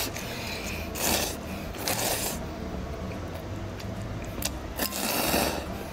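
A person slurping ramen noodles in short sucking pulls: one about a second in, another around two seconds, and a longer one near the end, with a light click in between.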